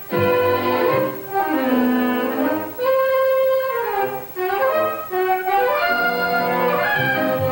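Orchestral cartoon score with brass and woodwinds playing a melody over a rhythmic low accompaniment, with a pause between phrases about a second in.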